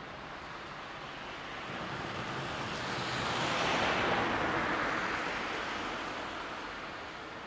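An unseen vehicle passing by: a rushing noise that swells to a peak about four seconds in, then fades away.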